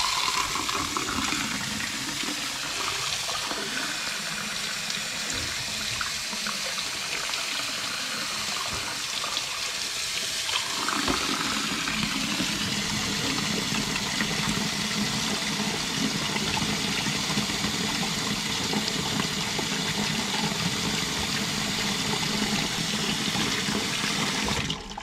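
Kitchen faucet running, its stream splashing onto and into a mug held in a sink dish rack. The sound deepens about halfway through and stops abruptly near the end.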